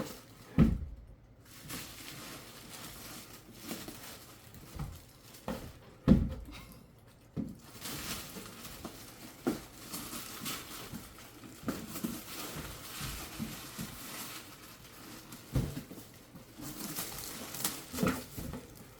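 Handling of gift packaging: packing paper rustling, with scattered light knocks and thumps as the box and bag are moved, two louder thumps about half a second in and about six seconds in.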